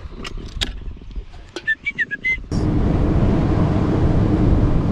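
A few sharp clicks and some short high chirps, then a sudden switch about two and a half seconds in to the steady sound of a bass boat running underway: a constant outboard engine tone under loud wind and water rush.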